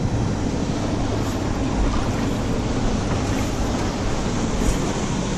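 Steady low rumbling wind noise buffeting the microphone, with water sloshing underneath.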